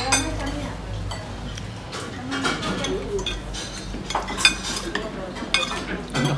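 Cutlery clinking against bowls and plates at a meal, with a few sharp clinks in the second half, over faint low chatter.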